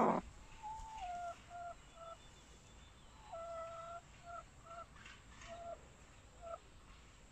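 Domestic hen in a nest box giving a series of soft, short clucking notes, one held a bit longer about three seconds in. The loud harsh tail of a squawk cuts off right at the start.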